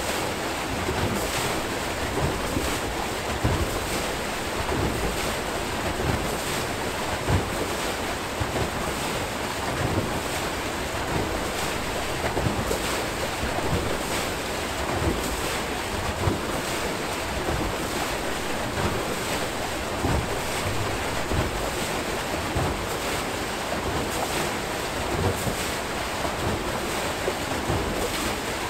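Water rushing and churning through an Archimedes screw hydro turbine as it turns, a steady rush with frequent short splashes.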